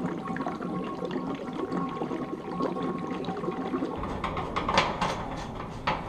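Kerosene being poured into the kerosene heater's fuel tank, a steady pour, with a couple of sharp knocks near the end.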